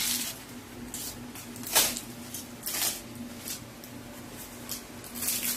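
Plastic-wrapped packets rustling and crinkling as they are handled and shifted in a cardboard box, in a string of short bursts, the loudest about two seconds in.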